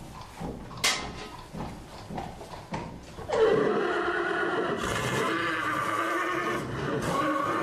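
A horse neighing: a long, wavering call that starts about three seconds in, after a few scattered knocks of hooves or the horse moving in its stall.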